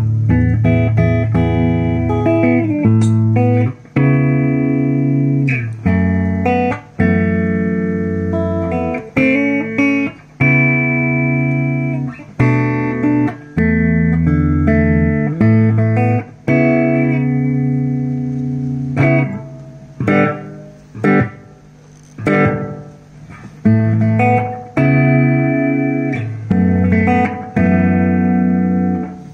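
Guitar played through a Toa EMX-10 echo mixer: chords and single notes with echo repeats. About two-thirds of the way in the notes glide in pitch, the delay's pitch-bend effect as the echo time is changed.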